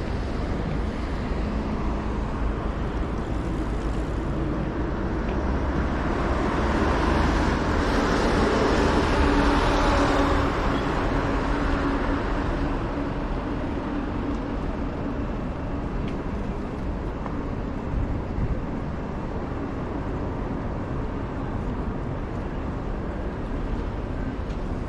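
City street traffic with a steady hum of passing vehicles. One vehicle passes close, growing louder to a peak about ten seconds in and then fading.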